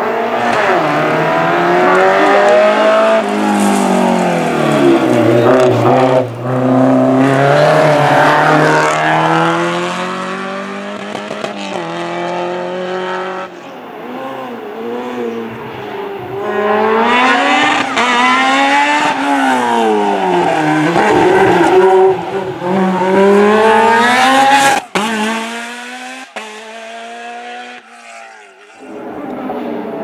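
Hill climb race cars driven hard past the spectator, one after another, the engine note rising and falling again and again as they rev up and back off. It is loudest in two long stretches and drops away suddenly about five seconds before the end, before another car is heard.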